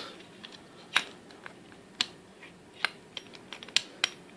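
Scattered sharp metallic clicks and taps, about five distinct ones and a few fainter, from a screwdriver and padlock parts being handled while the Abus 83CS/80 padlock is dismantled.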